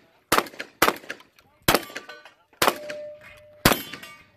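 Shotgun fired five times in quick succession, about one shot a second. Struck steel targets ring briefly after the fourth and fifth shots.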